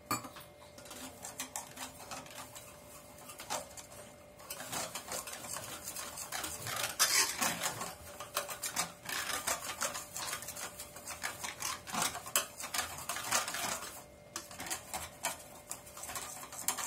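Wire whisk beating a thick semolina-and-flour batter in a stainless steel bowl: fast, continuous clicking and scraping of the wires against the steel. It starts lighter, gets faster and louder after about four seconds, and eases briefly near the end. The batter is being beaten until the sugar dissolves.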